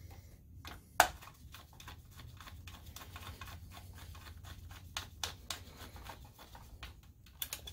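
Scattered small clicks, ticks and light scraping of plastic and metal parts being handled and fitted inside an opened DLP projector chassis, with one sharper click about a second in, over a low steady hum.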